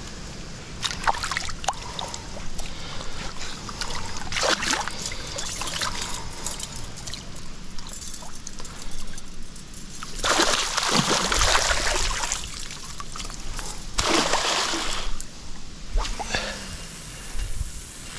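Water splashing and sloshing in several bursts, with small clicks and rustles between. The two longest and loudest splashes come about ten seconds in and about fourteen seconds in.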